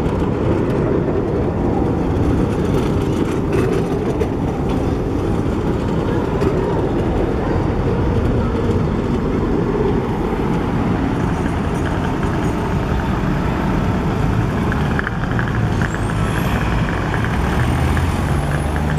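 Trams rolling past at close range: a loud, steady rumble of wheels on rails and running gear. Near the end a car drives by, its engine note rising over the rumble.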